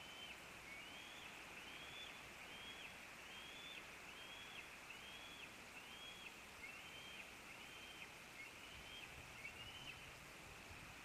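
Bald eagle nestling giving a faint, steady series of thin, high peeping calls, about one a second, each note rising and then levelling off. These are begging calls for food.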